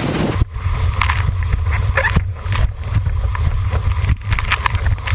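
Hiss of wind across an open microphone. About half a second in it gives way to the muffled rumble of wind and water heard through a boom-mounted GoPro's waterproof housing as a windsurf board planes at speed, with frequent sharp slaps and splashes of the board striking chop.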